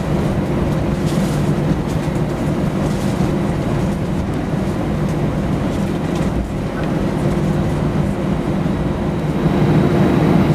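Airbus A319 jet engines running at taxi thrust, heard inside the passenger cabin: a steady drone with a low hum. It grows a little louder about nine and a half seconds in.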